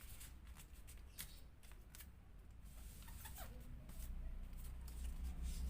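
Origami paper being folded and creased by hand: soft rustling with scattered crisp ticks as the folds are pressed, over a steady low hum.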